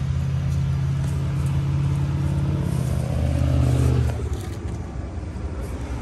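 Outdoor heat pump condensing unit running: a steady low hum from the compressor and condenser fan, which swells briefly and then falls away at about four seconds.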